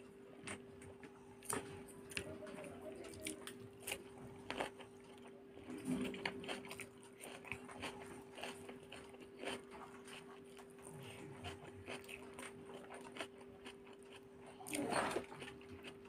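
Close-up hand-eating sounds: fingers mixing rice and egg curry on a paper plate, with crunchy bites and chewing in scattered small clicks and crackles, and a louder burst near the end. A steady low hum runs underneath.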